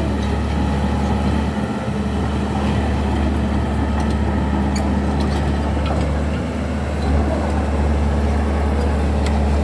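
Komatsu D31P bulldozer's diesel engine running steadily with a deep, even hum.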